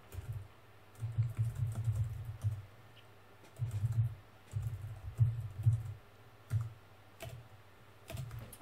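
Computer keyboard typing in several short runs of keystrokes, then a few single clicks near the end.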